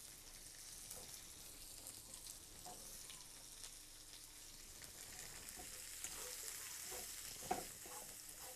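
Green beans and carrot sticks sizzling faintly in hot oil in a wok, with soft scrapes and taps of a spatula as they are stir-fried.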